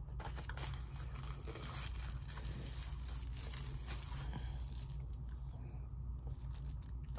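Plastic wrapping and a small cardboard box rustling and crinkling as a product is unpacked by hand, in scattered light rustles over a steady low hum.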